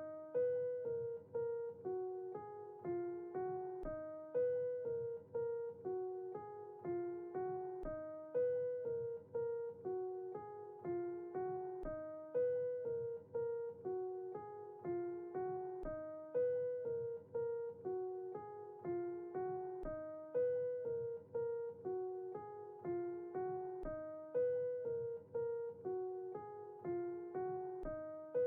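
Background music: a piano playing a short repeating figure of notes that loops about every four seconds, with a deep bass note at the start of each loop.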